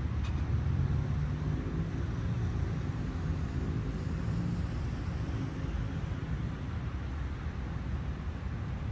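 Steady city traffic rumble, with one vehicle's engine passing in the first half.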